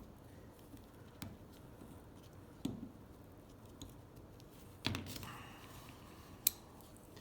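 Faint small metal clicks and taps of a steel pick and ratchet parts handled by hand, as the pawl is worked onto the shaft of a Craftsman ratchet's reversing lever with the spring-loaded detent ball held down. A louder click with a short ring comes about five seconds in, and a sharp tick about a second and a half later.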